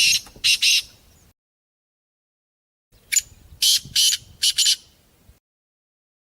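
Partridge (teetar) calling in harsh, high-pitched phrases of several quick notes: the end of one phrase at the start, then a full phrase of about five notes about three seconds in, with dead silence between.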